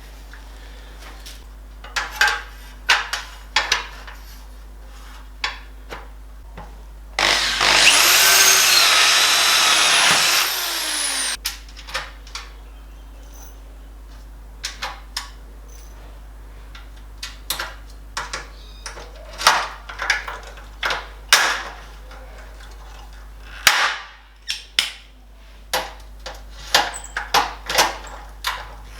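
Electric drill running for about four seconds, drilling aluminium, its whine rising at the start and falling before it stops. Scattered sharp clicks and knocks of the aluminium sections being handled come before and after it.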